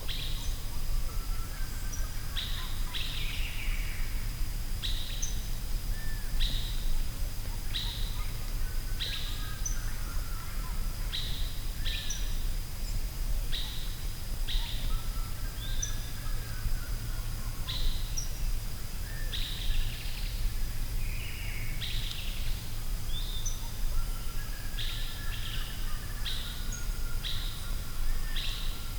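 Forest ambience: birds calling over and over in short high notes about every second or two, with softer lower chirps between them. Underneath are a steady low rumble and a thin, steady high tone.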